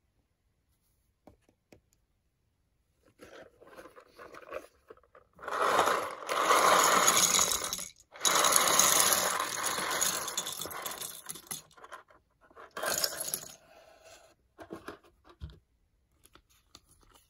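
Loose plastic LEGO pieces poured from a cardboard box onto a tabletop: a clattering rattle lasting about six seconds with a short break in the middle, then a shorter rattle a little later.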